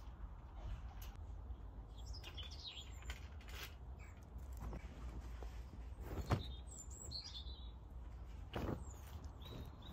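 Small birds chirping, with a few sharp clicks and rustles as washing is hung on a rotary clothes line; the loudest click comes about six seconds in and another near the end.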